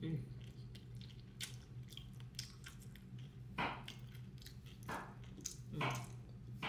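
Close-up chewing and lip-smacking of someone eating fried eggplant and meat, with scattered small clicks and three louder wet smacks in the second half, over a low steady hum.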